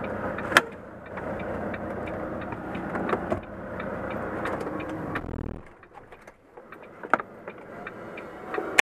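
Volvo FM truck's diesel engine idling, heard inside the cab, then switched off about five and a half seconds in. A faint regular ticking runs through, and a couple of sharp clicks follow the shutdown.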